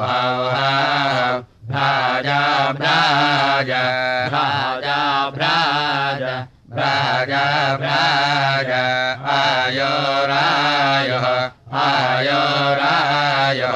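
Samaveda gana chanting in the Kauthuma recension: a voice sings long, wavering, drawn-out melodic phrases of Vedic chant, with three brief breaks for breath roughly every five seconds.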